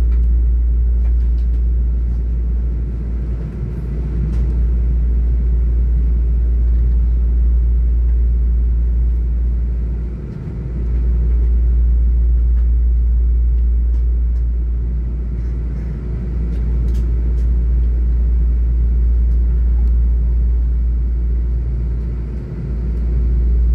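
Steady low rumble heard from inside a moving passenger train carriage as it runs into a station, dipping briefly twice.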